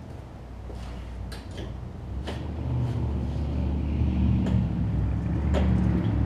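Toro Recycler push mower's small engine running, growing louder about two and a half seconds in, with sharp clicks and knocks over it as the newly replaced blade clutch cable is tested.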